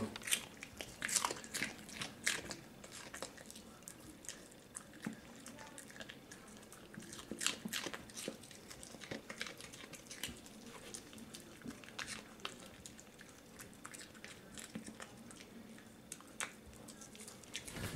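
Yorkshire terrier crunching a small piece of raw kohlrabi: faint, irregular crisp crunches and clicks of chewing.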